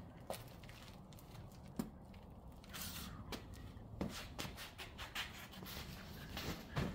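Handling noise from a hand-held camera and a person moving about: irregular soft clicks, rubs and shuffles over a low steady hum, with the sharpest click near the end.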